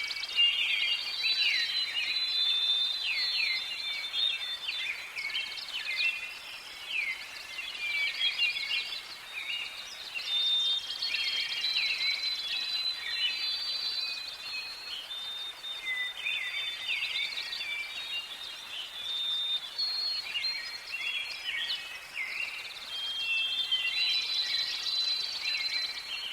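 Several songbirds singing and calling at once in a forest: overlapping quick chirps, short trills and clear whistled notes, continuous throughout, over a faint steady background hiss.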